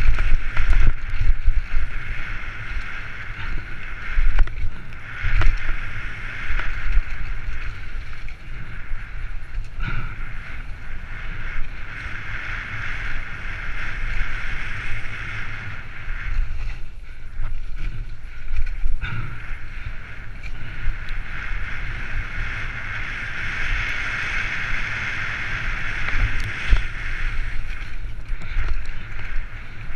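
Mountain bike descending a rough dirt trail at speed, heard from a helmet-mounted GoPro: continuous tyre rumble and rattle with wind rushing over the camera, a steady hiss throughout, and sharp knocks from bumps and drops a few times.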